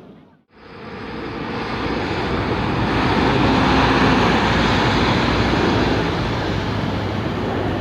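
Jet roar of Dassault/Dornier Alpha Jets' twin turbofans as the display jets pass. It comes in about half a second in, swells to its loudest around four seconds in, then eases off a little.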